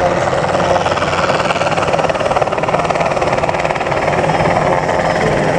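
Enstrom 480B-G turbine helicopter flying low, its turboshaft engine running steadily under a fast, even beat from the main rotor.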